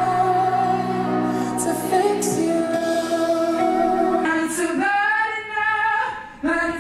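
Male pop singer holding a long, high sung note over sustained piano chords. About four seconds in the piano chords stop and the voice goes on in shorter phrases.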